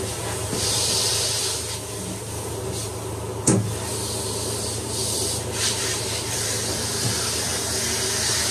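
Water hissing from a power bathing system's sprayer as it rinses a short-haired dog's coat in a stainless steel tub, over a steady machine hum. The spray comes and goes in gusts, and there is one sharp knock about three and a half seconds in.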